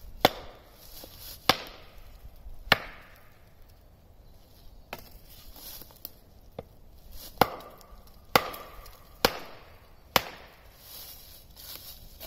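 A wooden log used as a mallet knocking down onto the chamfered top of a wooden stake, driving it into the ground: sharp wooden knocks, three about a second apart, then after a pause of several seconds four more.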